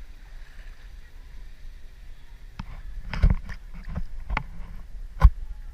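Sea water lapping and slapping against a GoPro camera's waterproof housing held at the surface: a low wash, then from about two and a half seconds in a series of sharp splashes and knocks, the loudest about three and five seconds in.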